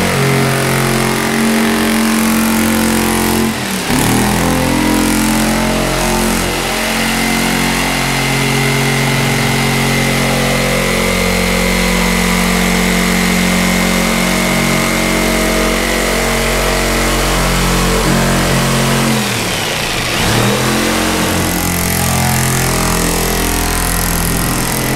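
Power saw running as it cuts a round hole in a race car hood panel, its motor dipping in pitch under load about 4 seconds in and again near 20 seconds, then picking back up.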